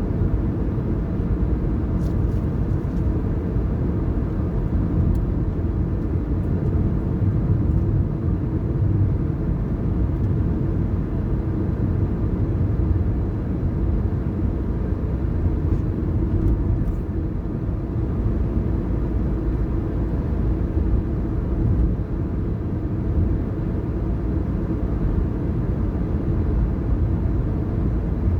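A car driving steadily, its low road and engine rumble running on evenly without change.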